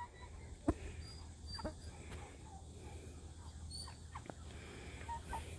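Cornish cross chickens being caught inside a wooden coop: a few faint, sharp knocks and scuffles with scattered short, high calls.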